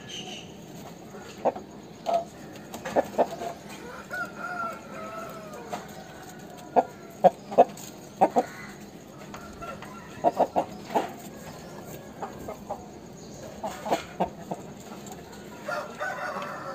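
Aseel roosters calling: short, sharp clucks in scattered clusters, with a drawn-out crow about four seconds in and another call starting near the end.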